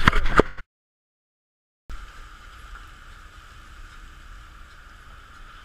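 A few sharp knocks as the crab pot is handled on the deck, then about a second of dead silence. After that, a steady drone of the fishing boat's engine with water washing past the hull as the shrimp trawl comes up alongside.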